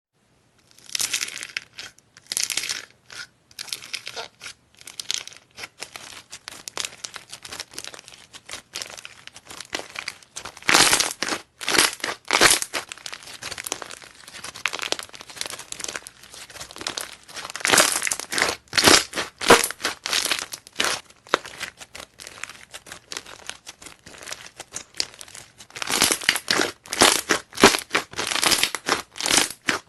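Slime being squeezed and worked by hand, giving a run of irregular crackles, clicks and small pops in clusters, with the loudest stretches about eleven, eighteen and twenty-six seconds in.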